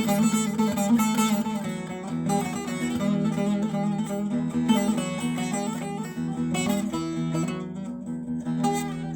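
Background music on plucked strings, a busy, picked melody over a steady low drone.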